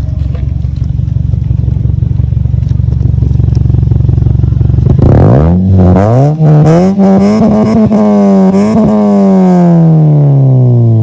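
Toyota Corolla engine running through an aftermarket HKS exhaust, idling steadily, then revved in several quick blips about halfway through. The revs are held high for a moment and fall back near the end.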